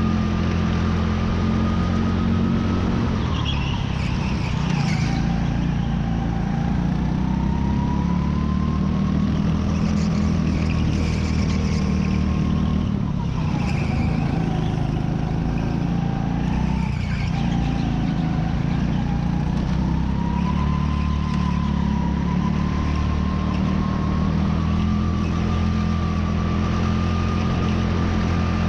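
Racing kart engine heard onboard at speed, its pitch dipping and climbing again several times as the kart slows for and powers out of successive corners.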